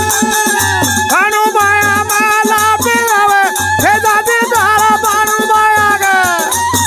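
Algoza, the Rajasthani paired double flute, playing a folk melody with sliding, bending notes. A barrel drum beats under it, and hand-held clappers click rapidly.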